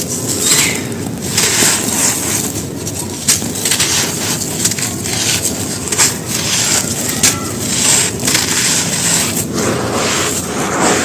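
Soft, crispy cylinders topped with white stones being crumbled on a dry floor: a dense, irregular run of crisp crunches and crackles.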